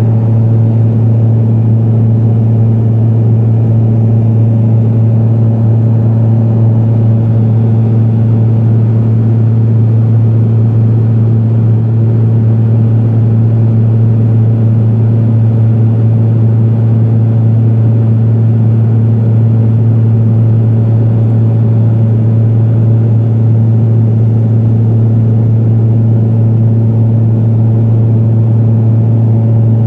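Cabin drone of a Pilatus PC-12 in flight: its single PT6A turboprop engine and propeller make a loud, steady low hum with one strong unchanging tone.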